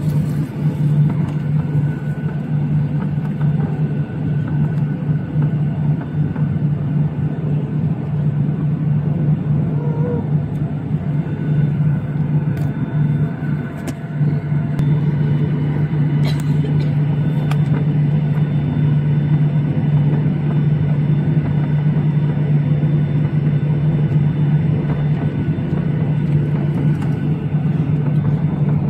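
Steady low drone of a Boeing 737-800's cabin, engines and air system running evenly with a constant low hum.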